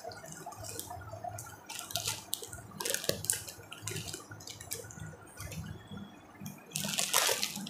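Saris being handled and shifted about in the lap, making rustling in short irregular bursts, the loudest near the end.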